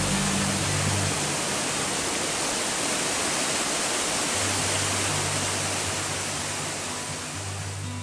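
Water cascading over stepped stone weirs, a steady rushing that eases off near the end, with low sustained music notes underneath.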